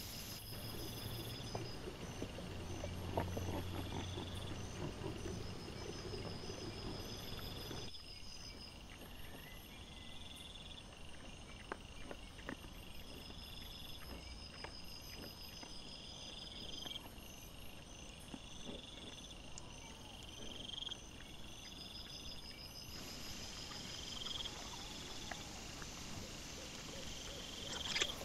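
Night insects chirping in short, evenly repeated pulses, over soft rustling and scattered small clicks from wild boar rooting and stepping in leaf litter.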